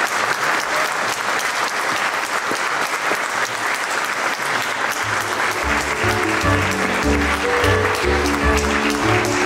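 Audience applauding steadily. About halfway through, music with a repeating bass line and melody comes in under the clapping.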